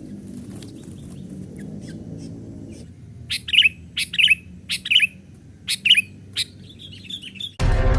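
Sooty-headed bulbul calling: a run of loud, sharp chirps, mostly in pairs, from about three seconds in, then a quick chatter. A low steady hum sits under the first three seconds, and music cuts in just before the end.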